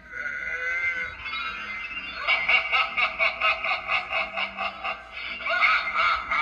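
A Seasons USA pumpkin-head skeleton Halloween prop playing its recorded sound track. Eerie gliding sounds come first, then a rhythmic cackling laugh at about four beats a second lasting some three seconds, then gliding sounds again near the end.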